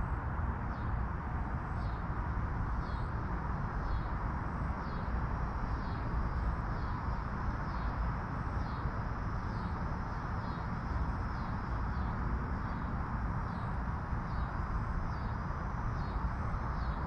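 A bird chirping over and over, short high calls about once or twice a second, over a steady low rumble of outdoor background noise.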